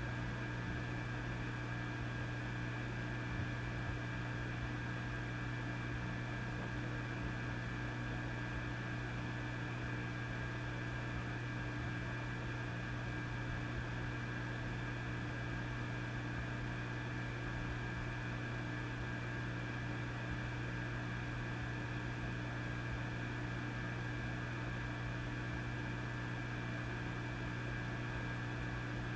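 Vintage tube amplifier switched on with nothing playing, giving off a steady low mains hum with a few fainter higher tones over constant hiss.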